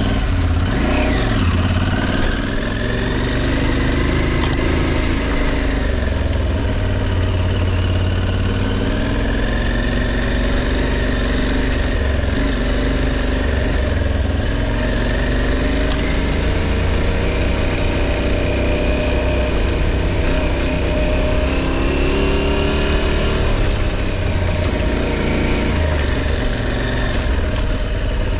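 Aprilia Tuareg 660's parallel-twin engine running as the motorcycle is ridden off-road, its pitch rising and falling with the throttle. A steady low rumble sits under it.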